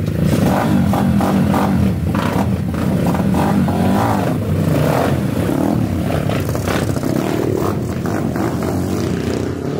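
Three Stomp pit bikes running together, revved as the riders pull away, the engine noise easing off a little near the end.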